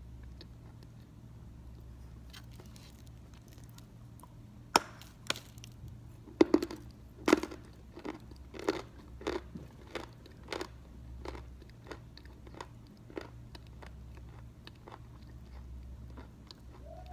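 Belgorod edible chalk being crunched and chewed in the mouth: a few sharp crunches about five seconds in, then steady chewing crunches, about three every two seconds, that fade out a few seconds before the end.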